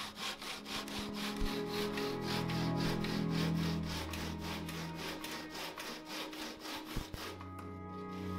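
Hand saw ripping a thin peeled wooden pole lengthwise, in quick regular strokes of a few a second that stop about seven seconds in.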